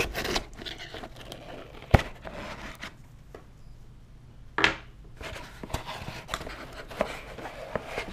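Packaging being handled and opened by hand: rustling and scraping with scattered clicks, a sharp knock about two seconds in and a louder rustle a little past halfway.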